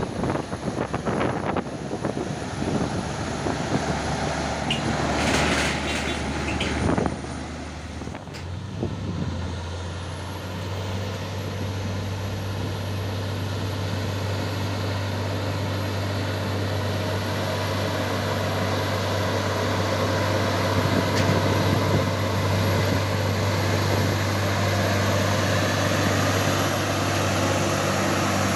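Heavy truck's diesel engine running under load, a steady low drone that grows slowly louder, after several seconds of irregular clattering and hissing noise at the start.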